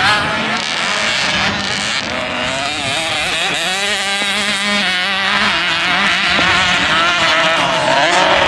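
Several small dirt bike engines running and revving together, their pitch wavering up and down as the throttles are worked.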